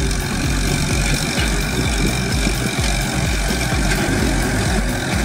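Diesel farm tractor running steadily under load as it pulls a disc plough through dry field soil.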